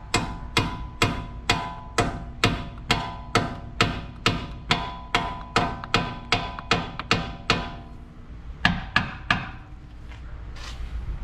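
Hammer striking a steel center punch, steady blows about twice a second, each with a metallic ring, then a short pause and a few more blows near the end. The punch is being knocked into a gap to spread it open so the part can move freely.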